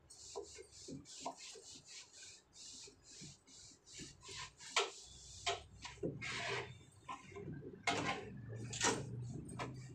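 A cloth scrubbing a kitchen shelf in quick back-and-forth strokes, about three a second, with a few knocks and clatters of items from about halfway through. A low hum comes in at the same point.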